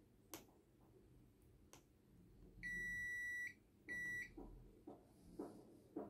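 Digital clamp multimeter's continuity buzzer giving two steady high beeps, one of almost a second and then a shorter one, as its test probes touch points on a Bluetooth receiver board. The beep signals continuity between the probed points. A few faint clicks of the probe tips come before it.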